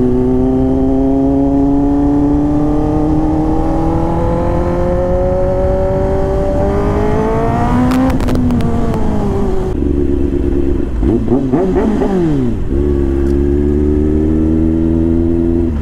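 Kawasaki ZX-10R inline-four engine pulling hard in second gear, its pitch climbing steadily for about eight seconds. The throttle then closes with a few sharp cracks from the exhaust, and the revs fall away, waver briefly and settle into a steady lower note at low road speed.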